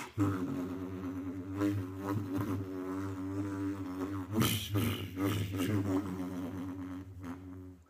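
A man imitating a lightsaber with his mouth and lips: a steady low buzzing hum, swelling into hissing swooshes of a swung blade a couple of times about two seconds in and again around five seconds in.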